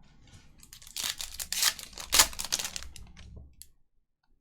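Trading-card pack wrapper being torn and crinkled open, a crackling rustle that lasts about three seconds and stops abruptly.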